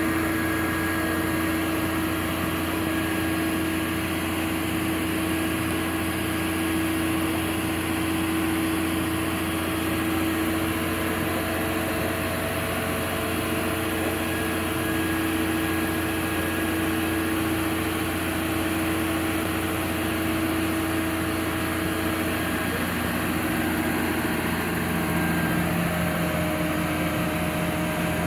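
Garbage truck engine running steadily at idle, a continuous drone with a few held tones that shift slightly about three quarters of the way through.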